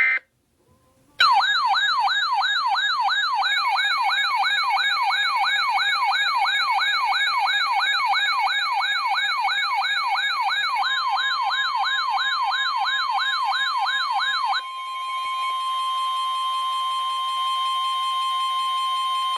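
A warbling electronic siren tone sweeps rapidly up and down, about three times a second, with steady tones sounding under it. About two-thirds of the way through the siren stops. The steady NOAA Weather Radio 1050 Hz warning alarm tone carries on alone, the signal that warnings are about to be broadcast.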